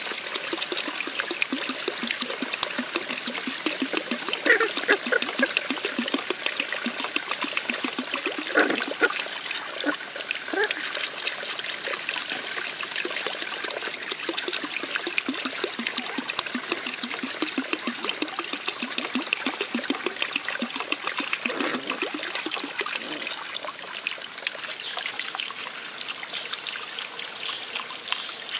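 Puppies eating rice from a trough: dense, quick wet smacking and chewing, with a few short pitched squeaks around four, nine and twenty-two seconds in.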